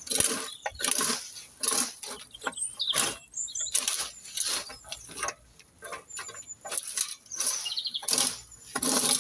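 Wire-tined fan leaf rake scraping dead fern fronds and leaf litter across soil, in repeated strokes a little faster than one a second.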